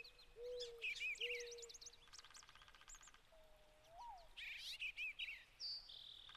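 Several songbirds chirping and twittering. A low whistled note comes about three times in the first two seconds and once more around four seconds in, and a rapid buzzy trill comes about two seconds in and again at the end.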